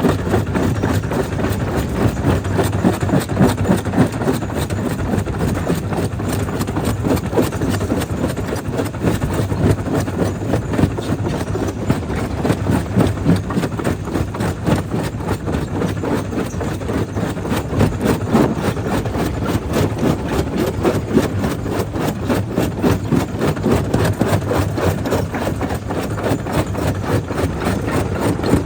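Jaw crusher running under load, breaking stone: a steady mechanical rumble packed with a constant clatter of cracking rock.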